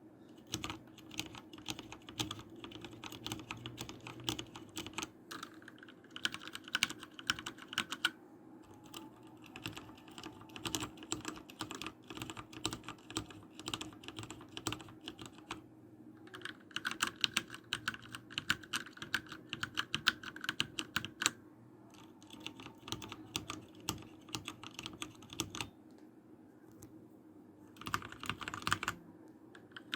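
Typing on a mechanical keyboard with heavy tactile key switches, as a sound test: fast runs of key clicks and clacks in bursts, with a few short pauses between them.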